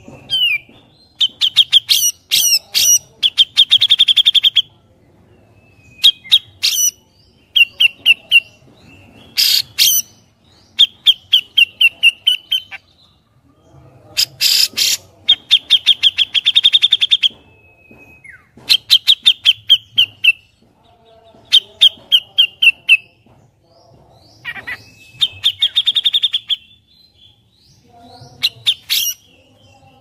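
Grey-cheeked bulbul (cucak jenggot) singing: short runs of rapid, sharp chattering notes repeated every second or two, with a few harsh rasping calls among them.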